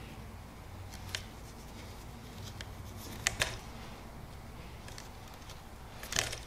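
Hand saddle stitching of bridle leather: a few faint clicks and short rasps as the needles and thread are drawn through the punched holes, once about a second in, twice close together a little past the middle, and a small cluster near the end.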